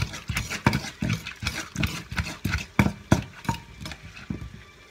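Wooden pestle pounding in a clay mortar, a steady run of dull thuds about three a second, as papaya salad is pounded and mixed. The strokes grow softer near the end.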